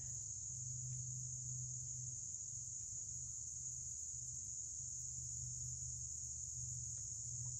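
Steady evening insect chorus: one continuous high-pitched trill that holds even throughout, over a low steady hum.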